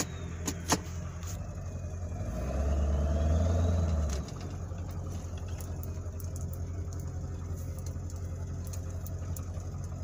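Ford F-250 Super Duty pickup's engine heard from inside the cab as the truck drives off, a steady low rumble that grows louder for about two seconds after the start, then settles to an even level. A few sharp clicks in the first second.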